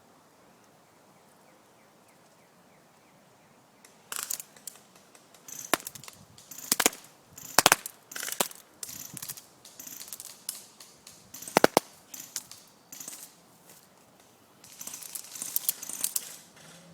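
Airsoft gun shots: sharp single snaps at irregular intervals, starting a few seconds in, with a quick cluster of snaps near the end.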